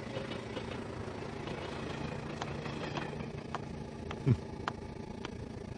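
Steady rumble and hum of a commuter train car from inside, with a run of light clicks from about two seconds in and one short low thump a little after four seconds.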